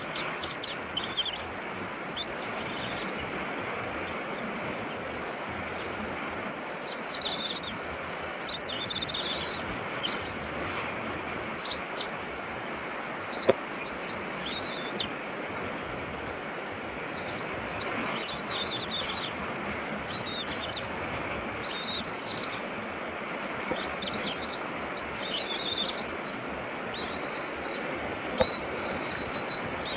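Bald eagle chick chirping in short, high calls scattered throughout as it is fed, over a steady background hiss, with one sharp click about midway.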